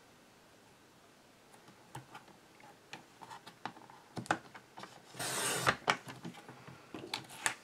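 Sliding paper trimmer cutting cardstock. First come a few light clicks and taps as the paper is set in place and the clear cutting arm is lowered. About five seconds in, the blade carriage is drawn along the rail in one quick rasping cut, followed by a few more small clicks.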